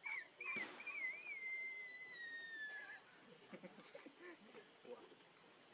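Young macaque crying: a few high, wavering notes, then one long whistle-like call that slowly falls in pitch and stops about three seconds in. A steady high insect buzz runs underneath.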